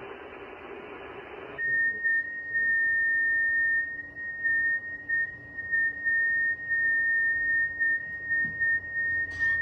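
Radio receiver hiss cuts off abruptly about a second and a half in and is replaced by a single steady high tone with a slight waver: the audio of a 6-metre transceiver switching over to an FT8 transmission. A couple of faint knocks come near the end.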